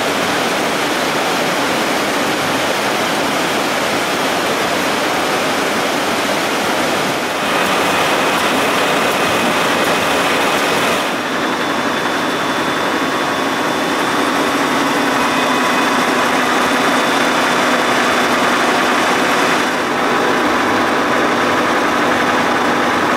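Steady rush of water running through the reverse Archimedean screw turbine and over the weir. Partway through, a steady machine whine at several fixed pitches joins it: the screw's generator and drive running.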